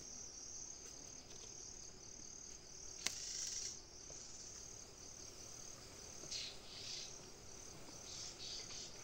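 Faint, steady, high-pitched insect chirring in the forest. A sharp click comes about three seconds in with a brief rustle after it, and there are short rustles near the end.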